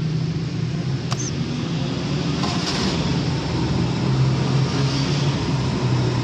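Old Suzuki Mehran's small three-cylinder petrol engine running steadily just after starting, its pitch dipping slightly in the middle and picking up again near the end. A sharp click about a second in.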